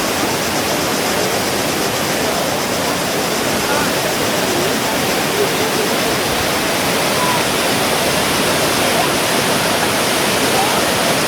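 Steady roar of the Kravica waterfall, a wide cascade about 28–30 m high, water pouring without a break.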